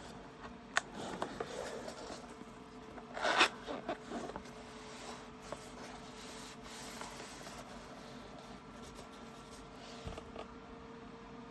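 Keyboard packaging being handled: rustling and rubbing with a few small clicks, and one loud scrape a little over three seconds in.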